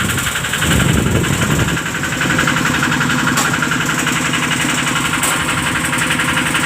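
Excavator's diesel engine idling steadily with an even, fast pulse. The low rumble swells for about a second near the start, then settles.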